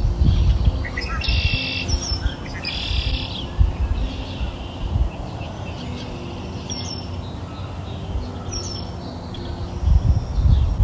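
Birds chirping in several short bursts over a steady low rumble.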